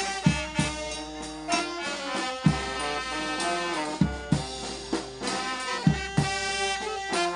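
Live funeral brass band playing: several saxophones and a trumpet hold the tune over a bass horn, with bass drum beats.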